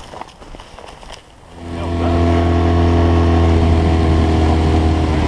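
Small boat's outboard motor comes in about a second and a half in and then runs steadily at a constant pitch, loud and close. A few faint knocks come before it.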